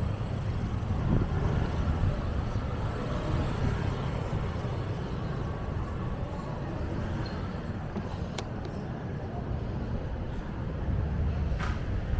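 Steady city traffic noise with a low rumble, and a couple of short clicks near the end.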